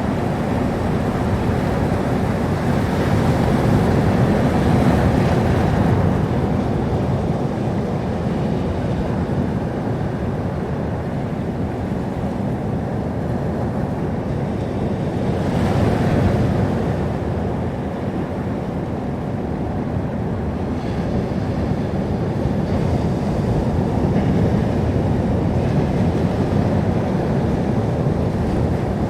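Sea surf: waves washing onto the shore in a continuous rush, swelling as a wave breaks about four seconds in and again about halfway through.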